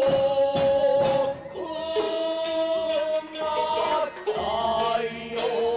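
Kabuki stage music: a chanted voice holding long, wavering notes, with sharp plucked strokes of a shamisen, typical of the takemoto (gidayū) accompaniment to ningyōburi.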